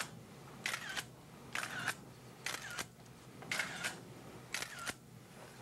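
Film camera shutter firing five times, about once a second, each shot a sharp click followed by a brief whir and a second click as the film is wound on.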